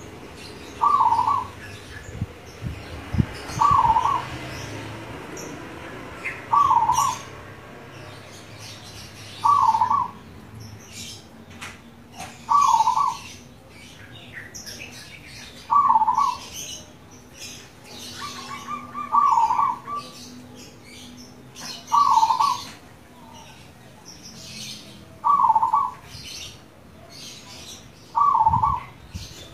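Zebra dove (perkutut) singing its cooing song, a short burst of notes repeated about every three seconds, ten times. Other small birds chirp faintly between the phrases.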